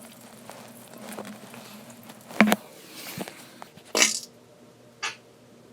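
Pooping sound effect: a few short wet bursts, the loudest about halfway through, another at about four seconds and a small one near the end.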